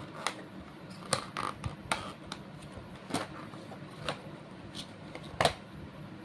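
Scattered clicks, taps and scrapes of a phone charger and its packaging being handled, with the loudest knock about five and a half seconds in.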